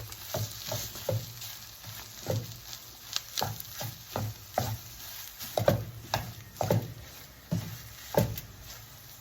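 Spoon stirring a chicken and potato filling in a frying pan, scraping and clinking against the pan at an irregular pace over a soft sizzle, as the added chilli powder is fried until its raw smell is gone.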